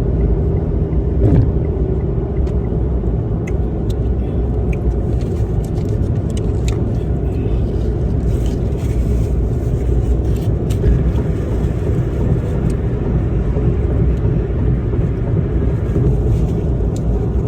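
Steady low road and engine rumble inside a moving car's cabin, with a few faint clicks over it.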